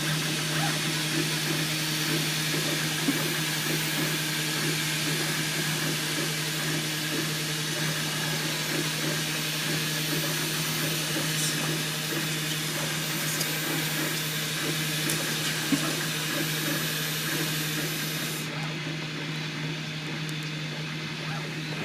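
3D printer running: a steady fan hum under an even hiss, with the stepper motors whirring in short, shifting runs.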